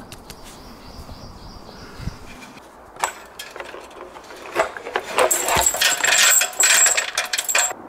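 Steel tow chain clinking and rattling as it is handled around the trunk: a few separate clinks from about three seconds in, then a dense ringing rattle over the last couple of seconds.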